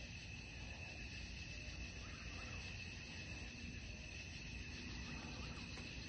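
A chorus of night insects such as crickets: a steady, high-pitched trill that doesn't change, over a low rumble.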